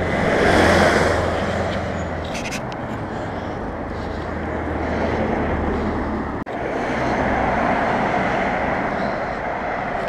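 A car driving past on a town street: a rush of tyre and engine noise that is loudest about a second in and then goes on as a steady rushing hiss with a low rumble.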